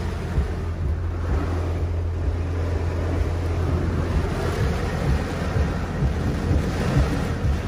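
Heavy rain drumming on a stopped car's roof and windshield in strong wind, heard from inside the cabin, with wind gusts and a steady low hum underneath that fades about halfway through.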